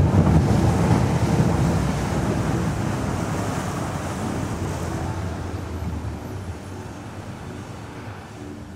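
Wind buffeting the microphone over the rush of water and motor of a rigid inflatable boat running at speed. The noise dies down steadily over the last few seconds as the boat slows.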